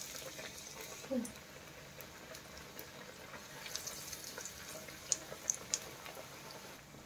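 Batter-coated onion bread pakoras deep-frying in hot oil in a kadhai: a soft steady sizzle with scattered crackles and pops, a few sharper ones about five seconds in. A brief squeak sounds about a second in.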